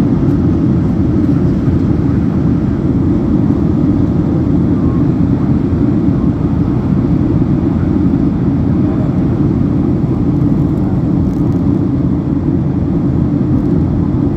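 Steady cabin noise of a jet airliner in flight: engine and airflow sound heard through the fuselage, an even, low-heavy rush that does not change.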